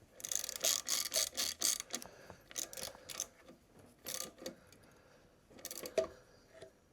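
Hand ratchet wrench clicking in several runs of rapid clicks as a fastener is tightened, the longest run at the start and shorter ones after.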